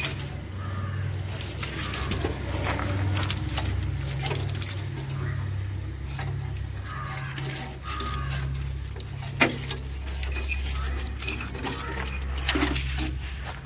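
Old tractor wiring being handled by hand: wires rustling and scraping against the metal bodywork, with scattered small clicks and one sharp click about nine seconds in, over a steady low hum.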